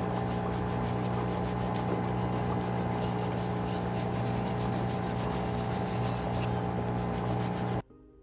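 Electric foot spa basin running with its vibration on: a steady motor hum with water churning in the basin. It cuts off suddenly near the end, giving way to soft music.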